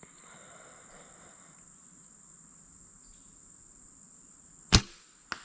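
Compound bow shot: one sharp loud crack as the string is released, followed about half a second later by a fainter thwack of the arrow striking the bag target 40 yards off. A steady high trill of insects runs underneath.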